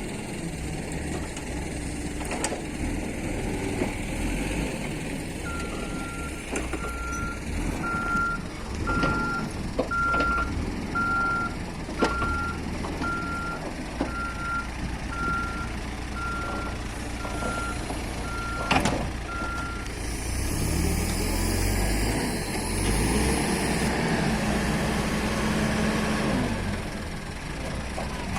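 Diesel engines of an excavator and a light truck running, with a backup alarm beeping steadily about once every three-quarters of a second for around fourteen seconds. After the beeping stops, a loud hiss and a heavier engine surge follow, then a steady engine note.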